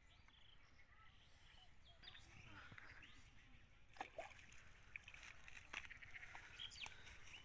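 Faint, quiet pond-side sound of a small hooked fish being pulled through the water on a fishing line: light sloshing and splashing, with a couple of small sharp clicks.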